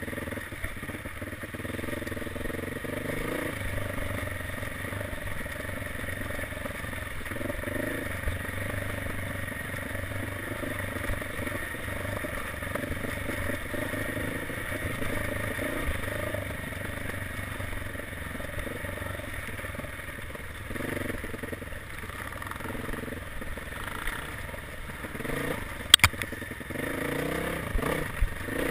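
Dirt bike engine running as it is ridden over rough forest single track, the revs rising and falling, with clatter from the bike over the uneven ground and a sharp knock near the end.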